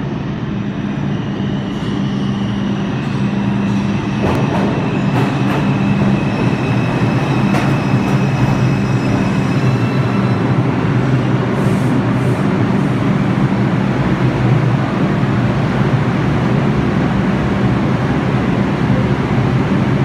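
NYC subway IRT R142/R142A train running through the station on the track beside the platform, with a steady heavy rumble and hum that swells over the first few seconds. Thin high whining tones run through the first half, with a few sharp clicks around the middle.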